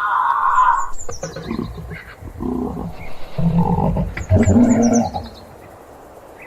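Giraffe vocalizing: a higher pitched call that ends within the first second, then low snoring-like grunts that grow louder and stop a little after five seconds in. A bird chirps twice above it, each time in a short run of falling notes.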